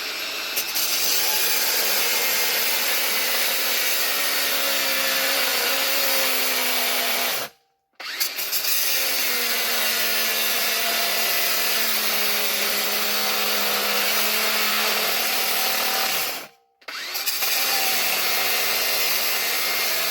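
Angle grinder cutting through metal rod in three runs of about eight seconds each, with short stops between them. Its whine wavers in pitch as the wheel bites.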